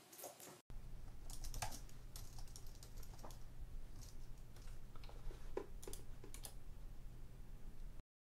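Typing on a computer keyboard: irregular key clicks. A steady low hum comes in under them about a second in, and everything cuts off suddenly just before the end.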